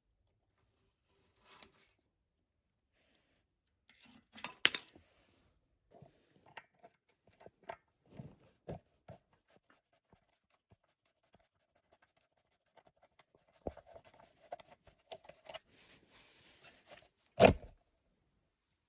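Small metal motorcycle parts and hand tools being handled during disassembly: scattered clinks, taps and scrapes, with two sharp metal knocks, one about four and a half seconds in and a louder one near the end.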